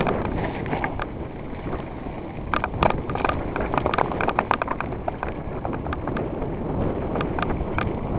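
Mountain bike riding down a rough dirt trail: a steady rumble of tyres and wind on the microphone, with many irregular rattling clicks and knocks from the bike jolting over bumps.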